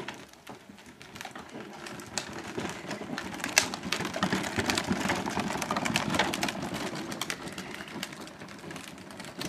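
The hard plastic wheels of a child's X-Trac pedal tractor rattling and clicking over concrete paving stones as it is pedalled along, growing louder from about two seconds in.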